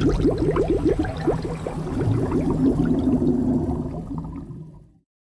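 Underwater movement sound effect: a low churning rumble under a rapid stream of short bubbling blips that sweep upward in pitch. The bubbles thin out and the sound fades away, ending about five seconds in.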